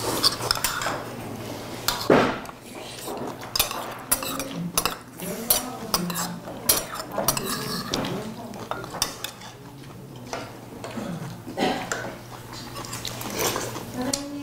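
Chopsticks and cutlery clicking and clinking against dishes and bowls at a meal table: a run of separate small clicks, with one louder clatter about two seconds in.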